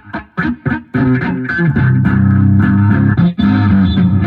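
Music led by guitar with bass guitar. It starts with choppy short notes, then from about a second in it turns into a fuller held passage, with a brief break a little past three seconds.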